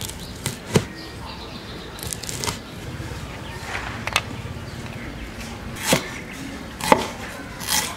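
Cleaver chopping on a thick round wooden chopping block as chilies and garlic are cut: about eight sharp knocks, spaced irregularly.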